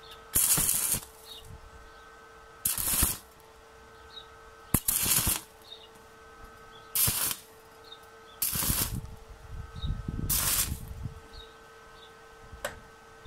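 Stick (MMA) welding with a thin 1.6 mm electrode at low current on 0.7 mm galvanized steel sheet. About six brief crackling arc strikes, each about half a second long and roughly two seconds apart, lay short tack welds. Such short tacks are needed because the sheet is so thin it burns through if the arc stays on too long. A sharp tick comes near the end.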